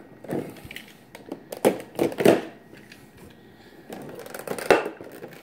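Clear plastic blister packaging crackling and clicking as it is handled and pried open, with the loudest crackles about two seconds in and again near the end.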